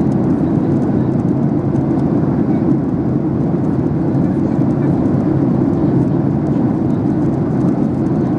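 Steady cabin drone of a Boeing 737-800 in flight, heard inside the cabin over the wing: a deep, even rush of its CFM56-7B engines and the airflow along the fuselage, unchanging throughout.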